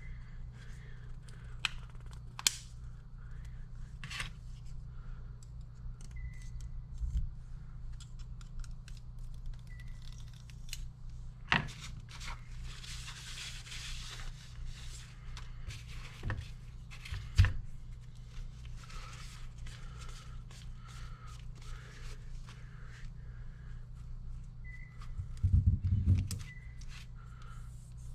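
Hand work on small hydraulic cylinder parts: scattered light clicks, knocks and scrapes of tools and metal parts, with a brief rustling scrape about halfway and a heavier low knocking rumble near the end. A steady low hum runs underneath.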